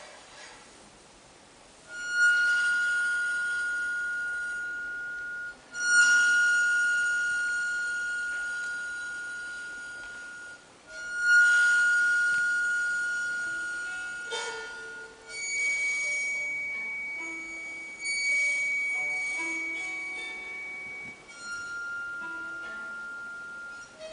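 Improvised electric guitar played flat on a table: single high notes struck about every four to five seconds, each ringing on and slowly fading, then a run of shorter notes and a higher held tone in the second half.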